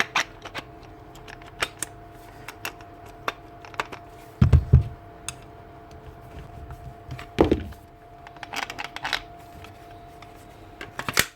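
Scattered clicks and knocks of a cordless angle grinder being handled before a test run, with two heavier thumps about four and a half and seven and a half seconds in, over a faint steady hum.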